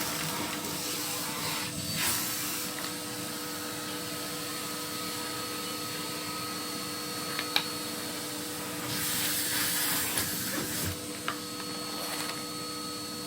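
Vacuum cleaner running steadily with a constant whine, sucking soot and debris out of the fireplace; the rush of air grows louder about two seconds in and again for a couple of seconds past the middle, with one sharp click in between.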